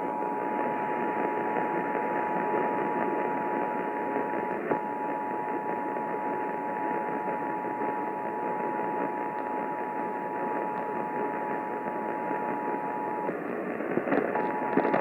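Emergency Alert System attention signal: the steady two-tone alarm at 853 and 960 Hz, over a constant hiss of radio static. The tone breaks off for an instant about four and a half seconds in, and again for about a second near the end.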